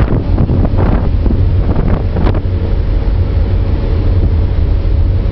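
Strong wind buffeting the microphone on the open stern of a moving ferry, with a loud low rumble and the rush of the churning wake beneath it. Several sharper gusts come in the first two seconds, then it settles.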